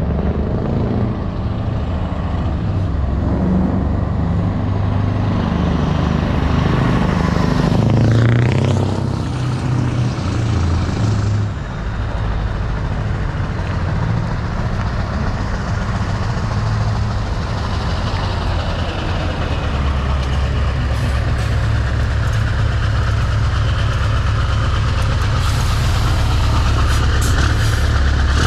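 Scania R580's V8 diesel engine driving past under power, a deep, steady exhaust note. A brief sweep in pitch comes about eight seconds in, and the low rumble grows heavier in the last third.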